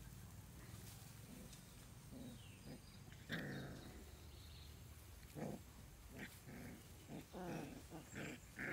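Puppies play-fighting, giving short growls, a few at first and more often in the second half.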